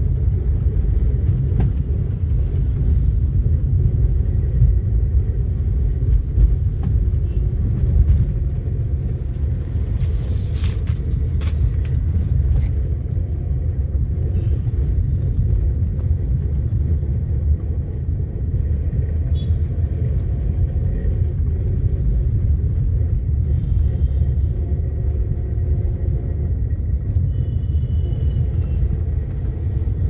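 Steady low rumble of a car driving through city traffic, its engine and tyre road noise heard from inside the cabin.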